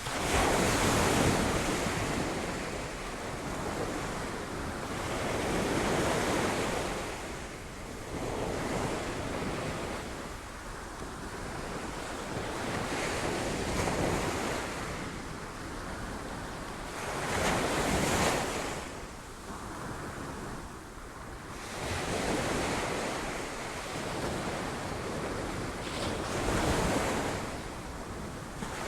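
Sea waves breaking on rocks, a steady wash of surf that swells with each wave every four to five seconds, with wind buffeting the microphone.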